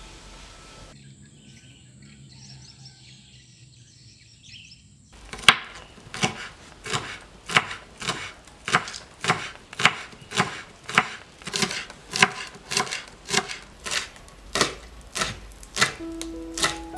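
Kitchen knife slicing green onions on a wooden cutting board: evenly paced chopping strokes, about one every 0.6 s, starting about five seconds in.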